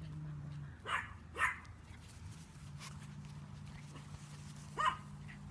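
Dog barking: three short, sharp barks, two close together about a second in and one near the end, over a low steady hum.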